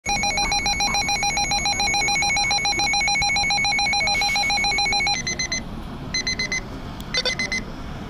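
Midland weather alert radio's built-in alarm sounding for a severe thunderstorm warning. A loud, rapidly warbling electronic tone for about five seconds switches to short, higher beeps in quick clusters, about one cluster a second.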